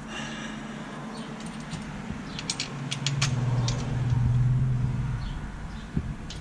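A quick cluster of sharp metallic clicks as tools and carburetor parts are handled, about halfway through, overlapping a steady low hum that lasts about two and a half seconds.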